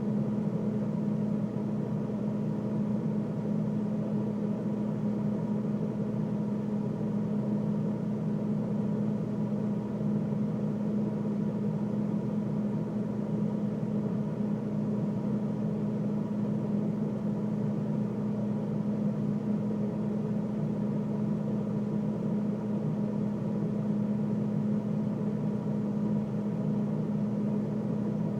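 Freezer running: a steady, unchanging machine hum with a strong low tone.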